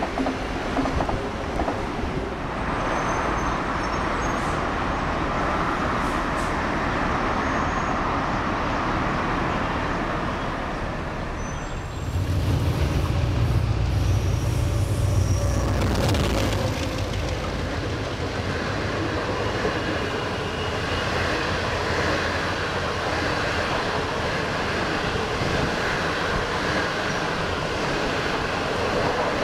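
A CRH1 electric multiple unit rolling past with a steady rush of wheel and air noise. About twelve seconds in the sound changes to a deep, loud rumble from a DF11 diesel locomotive for a few seconds, followed by the steady rolling of its passenger coaches passing close by.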